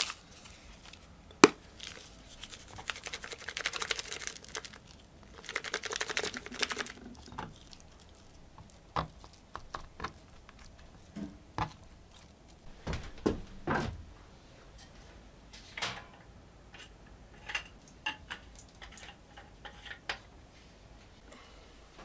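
Seasoning shaken from a shaker bottle over cut venison pieces: two runs of rapid rattling a few seconds apart. Then scattered soft taps and knocks of a hand working the meat on a wooden cutting board.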